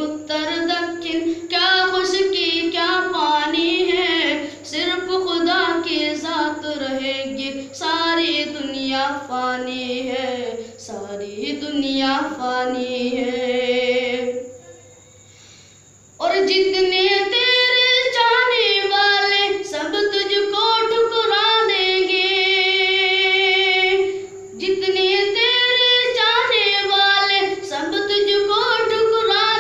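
A boy singing a naat, an Islamic devotional poem, unaccompanied into a microphone, in a flowing melodic line. About halfway he breaks off for a second or two to breathe, then goes on, later holding a long wavering note.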